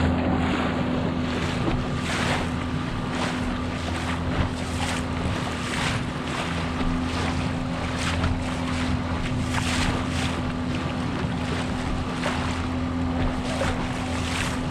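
9.8 hp outboard motor running at a steady pitch as it drives an inflatable boat through the chop, with water splashing and slapping against the hull and wind buffeting the microphone.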